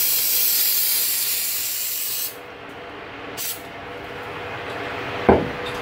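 Aerosol can of spray adhesive spraying: one long hiss of about two and a half seconds, then a short second spray about a second later. A brief knock near the end.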